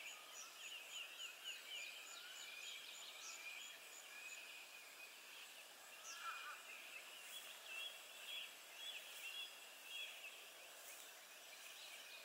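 Faint birds chirping and trilling in the evening, with a high, evenly repeated call over the first four seconds or so.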